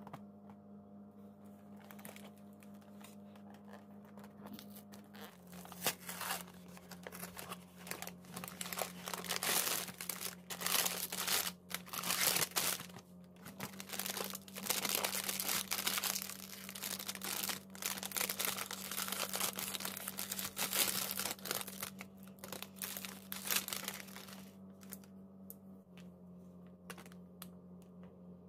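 Hands crinkling and tearing the thin plastic wrapper of an ice-cream cone, in dense irregular bursts of crackling, with a few handling sounds from a cardboard box at the start; a low steady hum runs underneath.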